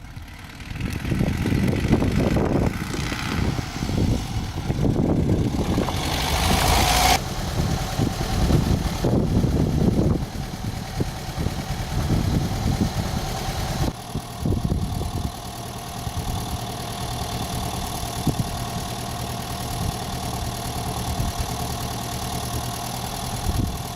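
Volkswagen T25 van's engine running, uneven for the first half, then steadier with a held tone from about halfway.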